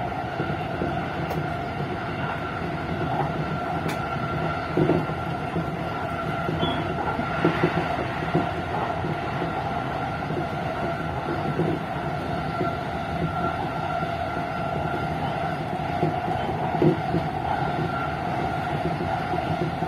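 JR East E233 series electric train running at speed, heard from behind the driver's cab: a steady rumble of wheels on rail under a constant running hum, with a few short louder knocks from the wheels over the track.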